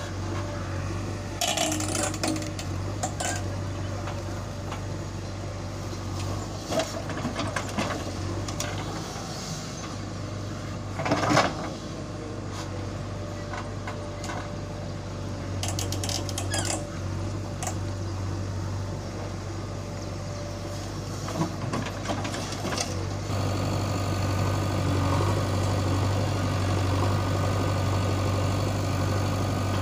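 Backhoe loader's diesel engine running with a steady low hum, with occasional sharp clatters of soil and stones as its bucket digs; the loudest clatter comes about a third of the way in. About three quarters of the way through, the steady engine noise becomes louder and fuller.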